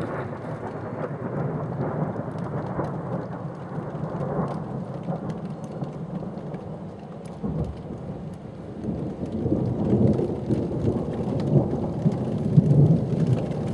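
Distant thunder rolling in a long, continuous rumble that swells in the second half, with scattered ticks of rain on top.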